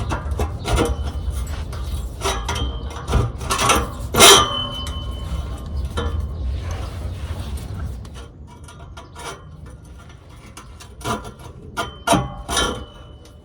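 Scattered metallic clicks, clinks and knocks of a blade and hand tools worked against a steel exhaust pipe, loudest about four seconds in, where one strike rings briefly; quieter, sparser clicks follow in the second half.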